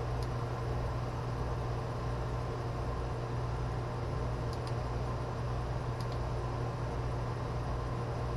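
Steady low hum with a hiss behind it, unchanging throughout, with a few faint small ticks.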